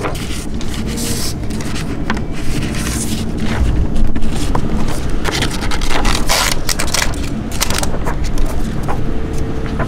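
Repeated short scraping and rustling as a foam headband strip and bungee cord are handled and threaded over paper, over a steady low rumble.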